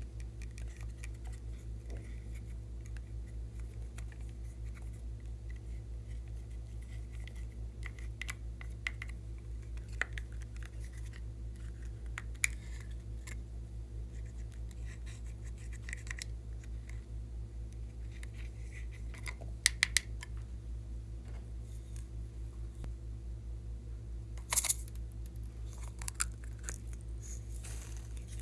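A thin stick scraping pressed eyeshadow and blush powder out of plastic makeup palette pans, in short scratchy strokes, with sharp plastic clicks and taps from handling the compacts, the loudest a little past two thirds in and about three quarters in. A steady low hum runs underneath.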